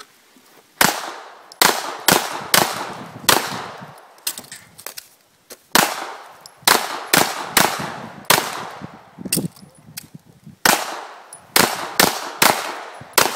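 Handgun shots fired in quick pairs and short strings, about eighteen in all, each a sharp crack with a short echo tail, with brief pauses between groups: a competitor shooting a timed USPSA course of fire through barricade ports.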